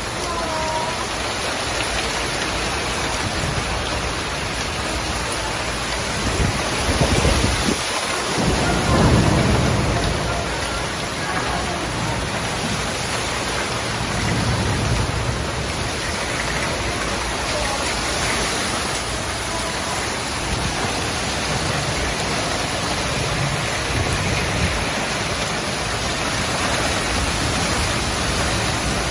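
Heavy rain pouring steadily in a thunderstorm, with low thunder rumbling, loudest from about seven to ten seconds in and again briefly around fifteen seconds.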